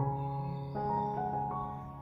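Slow, gentle instrumental background music with sustained keyboard-like notes.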